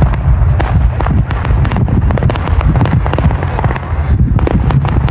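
Aerial fireworks shells bursting in quick succession: a rapid, irregular string of sharp bangs and crackles over a continuous low rumble.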